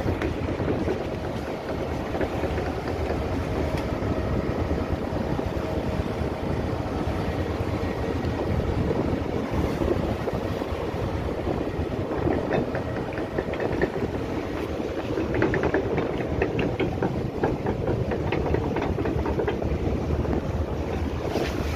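A boat's engine running steadily amid wind and sea noise in rough water, with wind buffeting the microphone.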